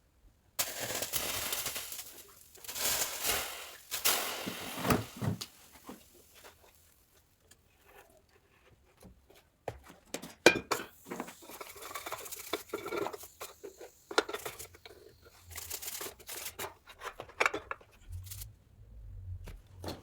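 Irregular scraping and crumbling noises in uneven bursts from moulding sand being worked, broken by sharp taps and clicks. The loudest is a single sharp knock about halfway through.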